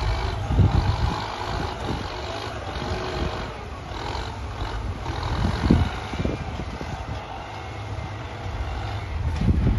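Excavator engine running with a steady low rumble, broken by heavy thumps about half a second in, near the middle and again near the end.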